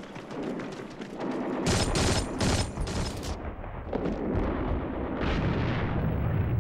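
Battle sound of rifle and machine-gun fire: a patter of shots, then a louder volley of several bursts about two seconds in, followed by a low rumble.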